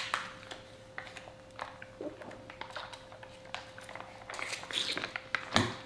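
Plastic crinkling and rustling as the straw wrapper is torn off a Kool-Aid Jammers drink pouch, with scattered small clicks and a sharper crackle near the end. A faint steady hum runs underneath.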